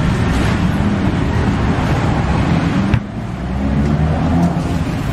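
Busy outdoor street-market din with road traffic: a steady, loud mix of engines and general noise with a low hum underneath. About three seconds in it drops abruptly and then carries on a little quieter.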